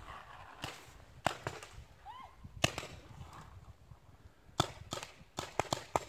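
Paintball markers firing: single sharp pops at intervals, then a quicker string of shots near the end.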